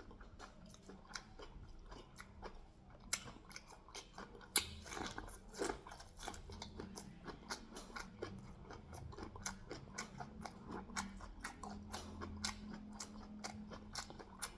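A person chewing sweet corn and pear with the mouth close to the microphone: a steady run of wet, smacking clicks several times a second, with a couple of sharper clicks about three and four and a half seconds in.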